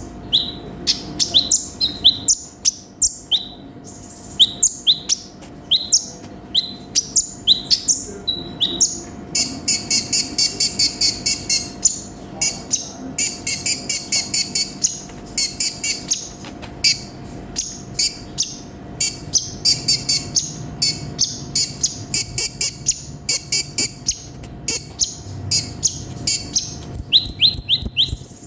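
Sunbird (konin) singing: a run of sharp, high chirps, broken by two fast trilled passages partway through. A faint steady hum sits underneath.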